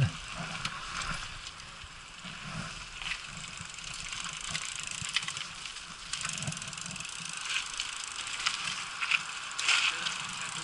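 Mountain bike ridden along a dirt forest trail: steady tyre noise on the dirt, with scattered clicks and rattles from the bike over bumps.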